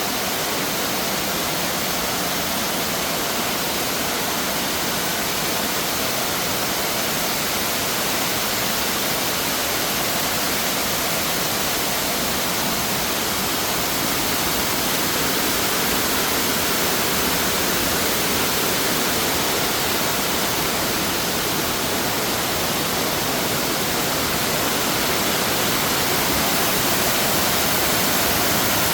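Waterfall: a steady rush of falling water, growing slightly louder toward the end.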